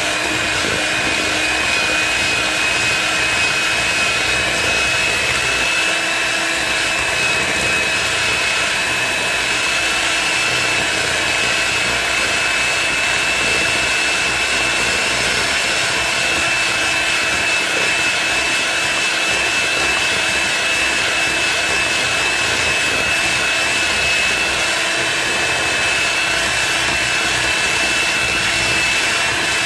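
Electric hand mixer running at a steady speed, a high motor whine over the churn of its beaters whipping butter, shortening and sugar syrup into buttercream in a steel bowl.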